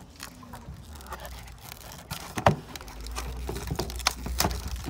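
Hands handling a cardboard box and pulling the tear strip on a product box's paper wrapping: scattered clicks, crinkles and light tearing, the sharpest click about halfway through. A low steady rumble runs underneath, stronger from about three seconds in.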